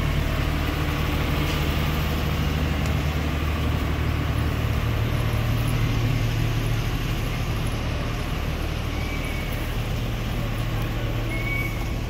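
Steady low rumble of road traffic, with vehicle engines running.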